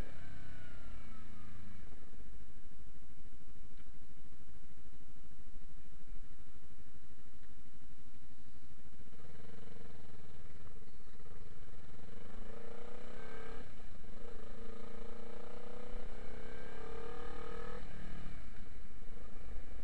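Motorcycle engine easing off and running low for several seconds, then accelerating through the gears, its pitch climbing and dropping at each upshift, twice in the second half.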